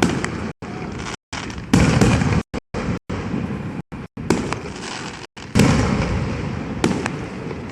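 Loud gunpowder bangs, three clear blasts, each trailing off in a long rumbling echo. The sound drops out briefly several times.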